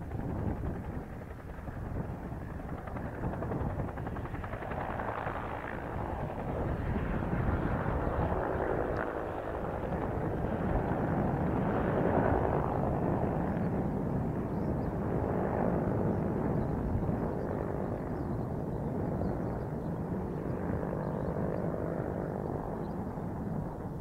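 UH-1J helicopter's two-blade main rotor and single turboshaft engine, lifting off from a low hover and climbing away. The sound grows louder from about four seconds in, is at its loudest around the middle, and eases a little near the end.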